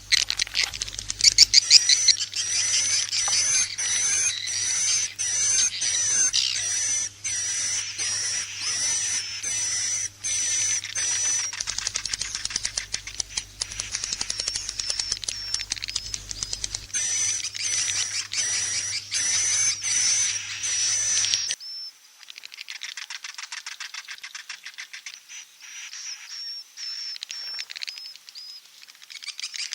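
Swiftlet lure-call recording of edible-nest swiftlets: a dense, rapid twittering of chirps and clicks, with a short high note repeating about twice a second. About two-thirds of the way through it cuts abruptly to a quieter, thinner layer of the same chirping.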